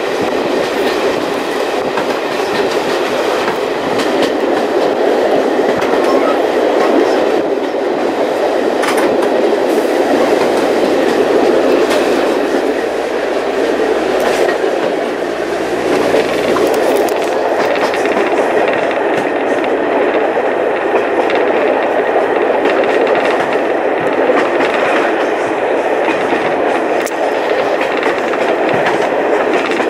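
Passenger railway carriage running along the line, heard from inside: a steady rumble of wheels on the rails with occasional clicks from the track.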